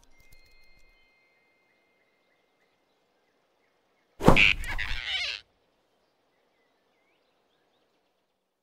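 A single loud, sudden sound effect about four seconds in, lasting just over a second, with a shrill note in it, set in otherwise near silence. Faint high chirps come in the first second.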